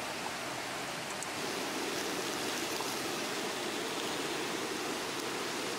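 Shrimp cooking in a cast-iron skillet over a low flame: a steady, even hiss with no lively sizzle, because the heat is too weak.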